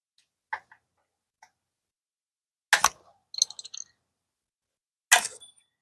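Metal clicks and clinks of a small pry tool working at the C-clip on the winch's large gear shaft: a few light clicks, then a sharp clack a little under three seconds in followed by a short rattle, and another sharp metallic clack with a brief ring near the end.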